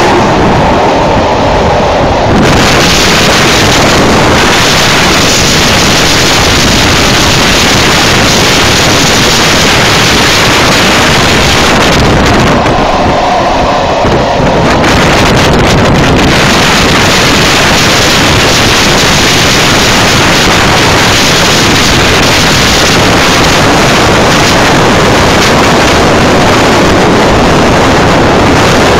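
Loud wind rushing over the microphone at a moving train's window, mixed with the train's running noise. The rush eases briefly twice, at the start and again about halfway.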